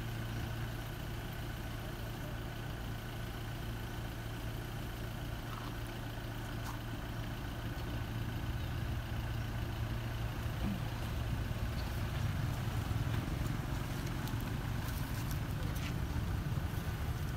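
Low, steady engine hum of an idling motor vehicle, growing louder and rougher in the second half.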